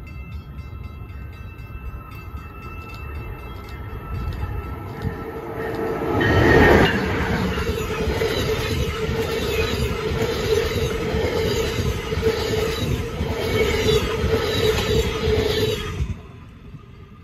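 Passenger train of stainless-steel coaches passing close by at speed. Its rumble builds from the distance, peaks loudly about six seconds in as the head end goes by, then holds as a steady rush and hum with a rhythmic clatter of wheels. It cuts off abruptly about sixteen seconds in.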